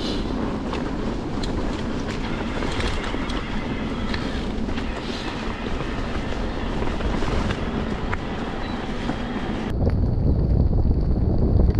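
Mountain bike rolling fast over a leaf-covered dirt trail: tyres on leaves and dirt, with the bike's chain and frame rattling and clicking over bumps. About ten seconds in the sound switches abruptly to a heavy wind rumble on the microphone with a thin steady high whine.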